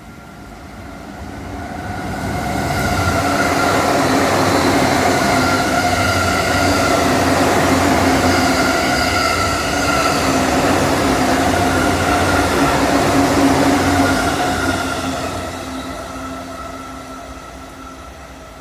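Sobu Rapid Line electric train passing: it builds over about three seconds, runs loud for about ten with a steady whine over the wheel and rail noise, then fades away.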